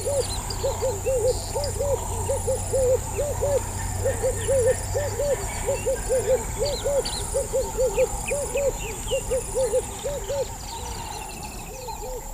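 Wetland ambience: an animal gives a long run of short, low hooting calls, about three or four a second in twos and threes, over a steady high insect drone with scattered small bird chirps. The hooting fades away about two seconds before the end.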